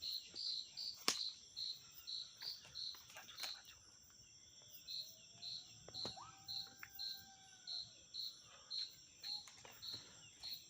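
An insect chirping in an even rhythm, about three short chirps a second, breaking off for about a second midway, over a steady high insect drone. A single sharp click comes about a second in.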